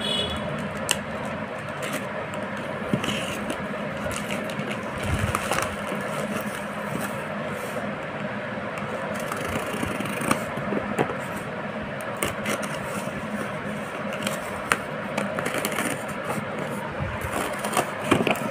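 Plastic courier mailer crinkling and tearing as it is opened, then fingers scratching and picking at packing tape on a cardboard box, with many scattered sharp clicks and crackles and a dull knock about five seconds in.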